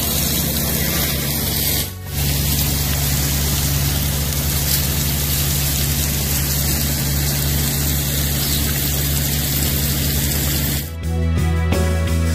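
Hydromulch slurry spraying from a hydroseeder hose, a steady hiss over a steady low hum, with a brief break about two seconds in. Near the end it gives way to music.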